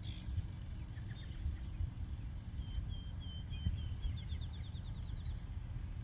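A bird calling: a few scattered chirps, then a run of short high notes that quickens into a rapid, slightly rising trill. A steady low rumble runs underneath.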